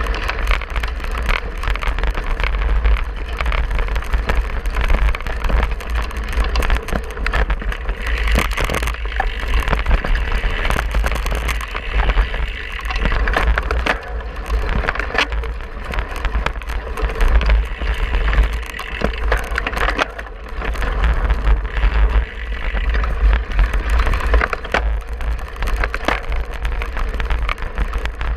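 Wind buffeting the microphone of a handlebar-mounted camera on a cyclocross bike ridden fast over rough grass and dirt, with the bike rattling and clattering continuously over the bumps.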